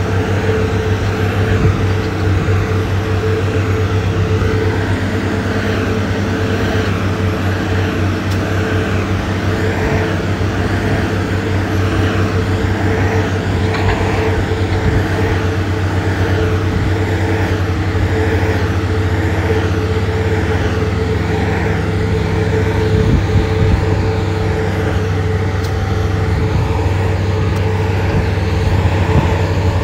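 Diesel engine of a heavy road-building machine, a motor grader or roller compactor, running steadily under work as a continuous low hum with a steady higher drone above it.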